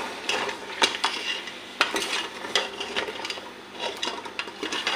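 Steel ladle stirring in an aluminium pressure cooker, clinking and scraping against the pot wall in irregular strokes, over a faint sizzle of trotters frying in oily masala.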